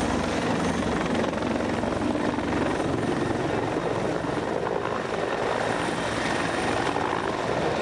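Police helicopter flying low overhead and away, its rotor and engine noise loud and steady.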